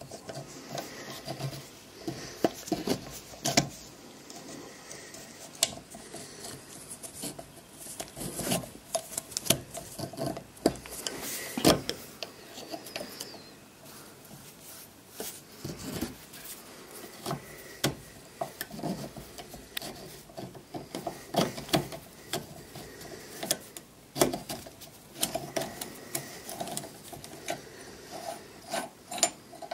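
Irregular metal clicks, scrapes and rubbing as the corroded parts of a WW1 German DOPP artillery shell fuse, clamped in a vise, are worked loose by hand.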